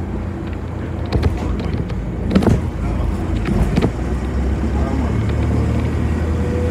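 City bus heard from inside while riding: a steady low rumble of engine and road with a few sharp knocks and rattles. Near the end a steady hum grows louder and a thin whine comes in.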